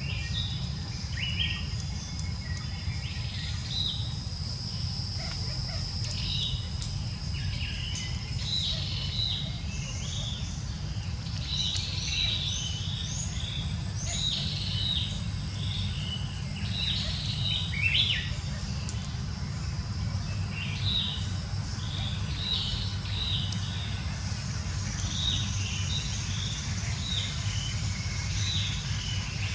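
Birds chirping in many short, repeated high calls, over a thin steady high insect drone and a constant low rumble.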